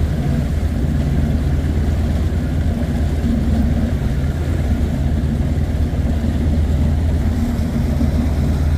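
A fishing boat's outboard motor running steadily at cruising speed, with a constant rush of wind and water over the hull.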